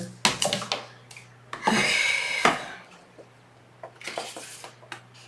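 Paper and cardstock handled on a craft table: a few sharp taps and clicks, then a scraping slide lasting about a second, followed by fainter rustling.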